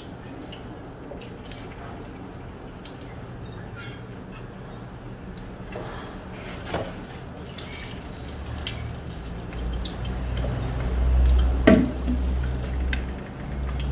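Wet pieces of raw beef liver plopping and dripping into a clay pot with a little liquid in it. About twelve seconds in, a glass bowl knocks once against the pot.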